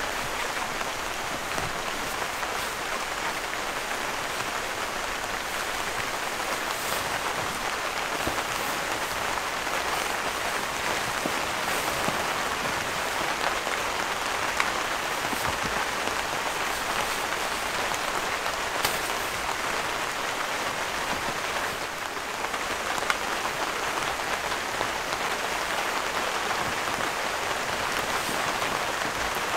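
Steady rain falling on a tent roof: a dense, even hiss with a few sharp drop taps here and there.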